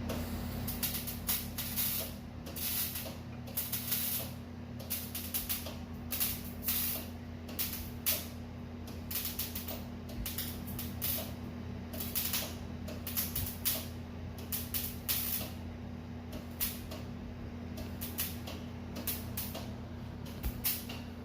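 Irregular short hissing bursts, a fraction of a second each and many in a row, over a steady low machine hum.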